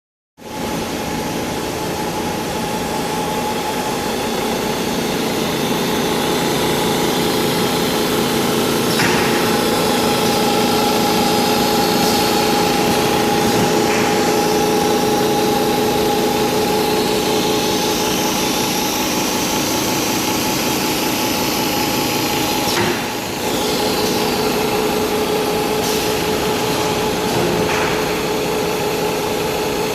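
Automatic filter bag sewing machine running with a steady mechanical hum, a few sharp clicks and a brief drop in level about two-thirds of the way through.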